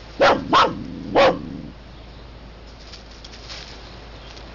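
A dog barks three times within about a second and a half, the first two close together.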